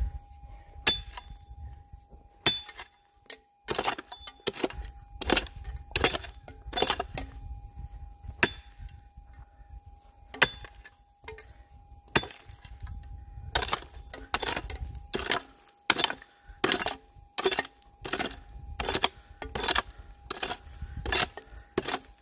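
A prospecting pick chopping into hard, stony ground to dig out a metal-detector target. Its sharp clinks of steel on rock come about one or two a second, with a few short pauses, over a faint steady tone.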